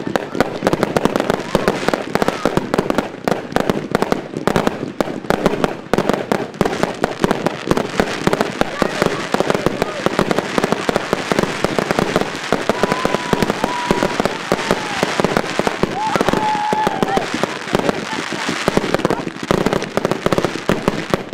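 Fireworks finale: a dense, continuous barrage of bursting aerial shells and crackling, with no gaps. A few high whistling tones come through between the bangs around the middle.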